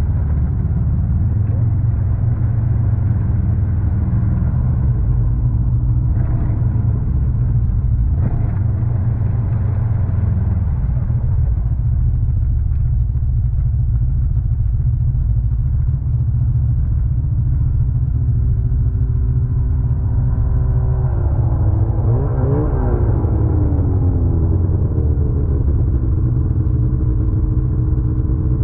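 Ski-Doo 600 ACE snowmobile's four-stroke three-cylinder engine and track running steadily at trail speed, deep and heavy in the lows. A little past two-thirds of the way through, the engine pitch wavers up and down for a couple of seconds, then settles slightly higher.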